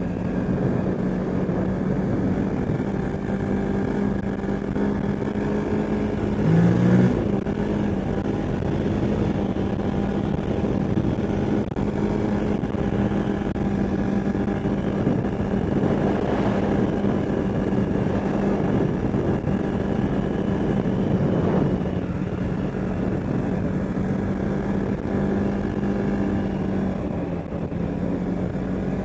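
CFmoto ATV engine running at a steady speed, with a brief rev about seven seconds in. The machine has a leaking exhaust.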